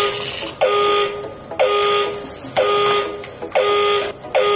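Target alarm clock sounding its alarm: a harsh buzzing beep repeating about once a second, each buzz lasting a little over half a second.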